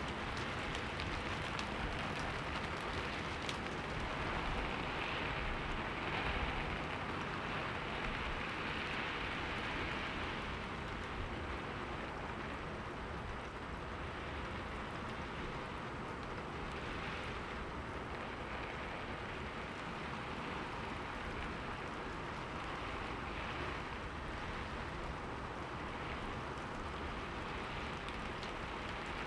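Steady rain on a window: an even hiss with faint scattered ticks of drops hitting.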